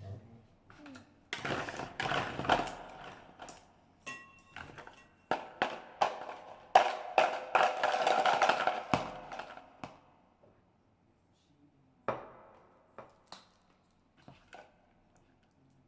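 Kitchen handling noises: clicks and knocks with two stretches of rushing, scraping noise, a brief ringing ping, then a few sparse taps after about ten seconds.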